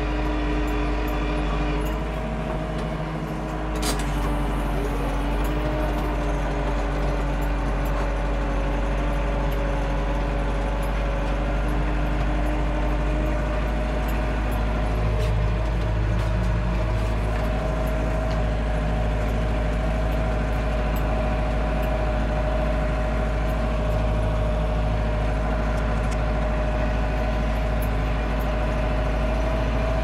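Perkins four-cylinder diesel engine of a Landini Blizzard 65 tractor running steadily under load while pulling a fixed-tine harrow, heard from the cab. One sharp click about four seconds in.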